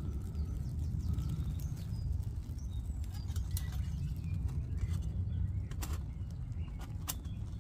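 A few faint metallic clicks as the pot supports are fitted back onto a Lixada folding steel twig-burning stove, over a low steady rumble, with faint birdsong behind.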